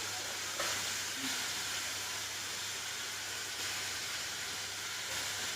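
Onion and chopped vegetables frying in an open pressure cooker over a gas flame, a steady sizzling hiss that brightens a little about half a second in.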